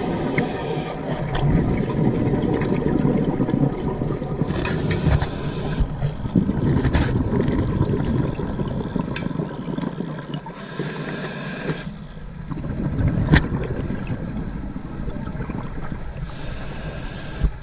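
Underwater sound of a scuba diver breathing through a regulator: a hissing inhalation four times, about every five to six seconds, with low bubbling and rumbling water noise from the exhalations in between.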